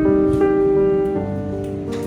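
Background music: gentle piano melody with sustained notes.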